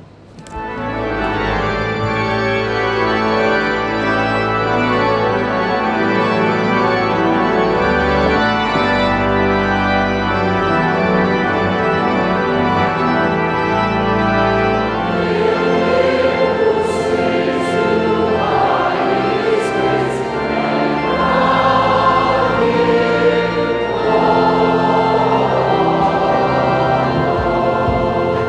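Organ playing slow, sustained chords over deep held bass notes, and about halfway through a choir starts singing with it.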